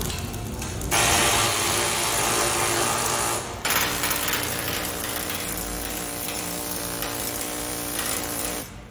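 Pneumatic chipping tool rattling rapidly against a weld bead on steel plate, knocking off slag.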